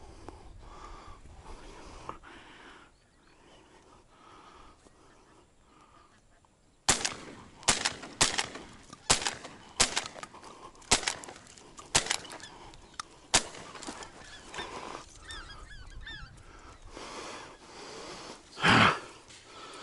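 A flock of geese calling close overhead: faint honking at first, then about seven seconds in a sudden burst of loud, quick honks, about ten of them in six seconds, followed by softer calls and one more loud sound near the end.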